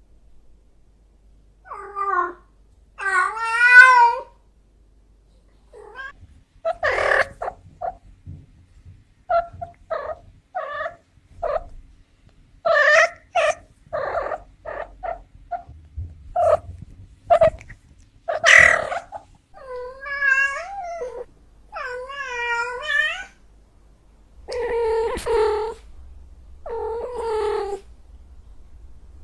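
Female cats in heat yowling and meowing loudly: a series of separate calls, long drawn-out yowls that wobble in pitch, mixed with runs of short meows.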